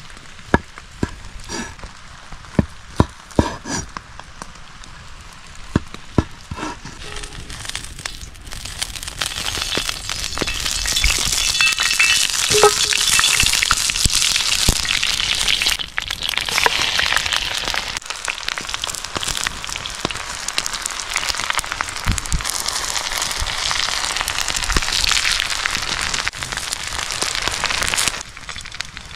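A few sharp knocks, then food frying in a hot pan: a loud, crackling sizzle starts about eight seconds in, dips briefly halfway through and stops near the end.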